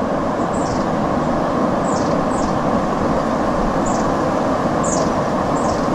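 A small bird calling with short, high, falling chirps every second or so, over a loud, steady rushing noise.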